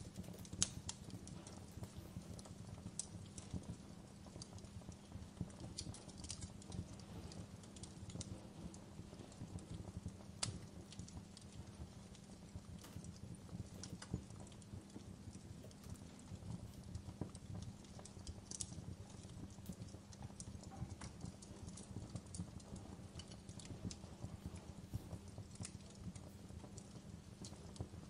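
Crackling fireplace: a steady low rumble of the fire with many small crackles and scattered sharp pops and snaps.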